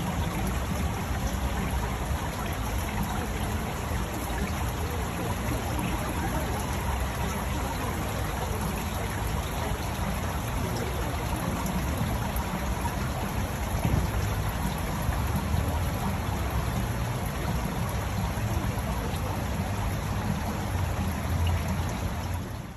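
Water running steadily off a shallow reflecting pool into a metal drain grating, a continuous trickling rush over a low rumble.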